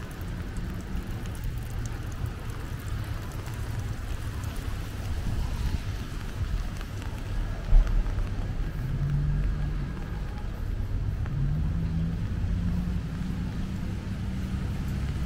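Street ambience in the rain: wind rumbling on the microphone, with a motor vehicle's engine passing in the second half. One sharp thump stands out about halfway through.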